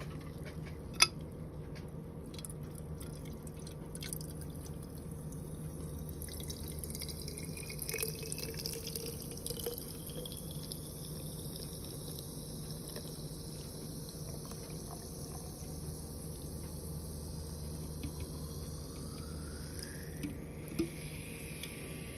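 Water running steadily, with a sharp click about a second in and a tone that rises in pitch near the end.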